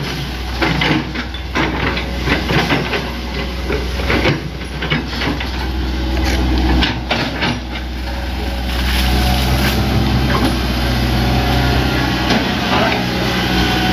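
Hitachi ZX100 hydraulic excavator's diesel engine running, with repeated knocks and clanks from the machine at work in the first half. From about nine seconds in the engine note becomes louder and steadier.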